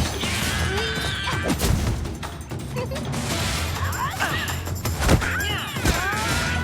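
Cartoon action music under a fight, with several hits and crash sound effects.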